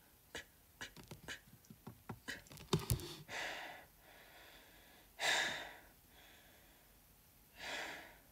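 A person breathing out in three audible huffs, about three seconds in, a louder one around five seconds, and a softer one near the end. Before them comes a run of small sharp clicks and taps.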